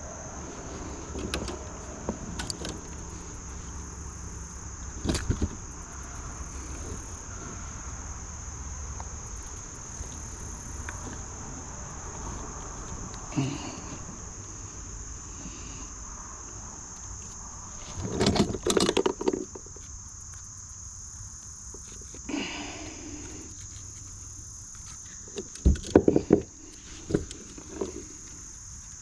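Steady high-pitched drone of insects in summer vegetation, with a few scattered knocks and clatters, the loudest clusters about 18 and 26 seconds in.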